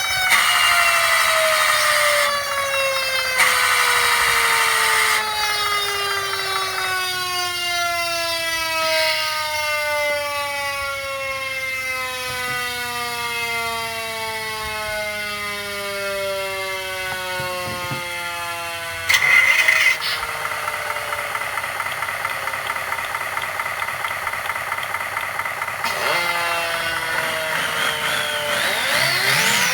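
Fire-truck sound effects played by an RC car sound simulator module: a siren's pitch winding slowly down, broken by short loud horn blasts about two and four seconds in and again past the middle. Near the end the siren starts sweeping up and down again.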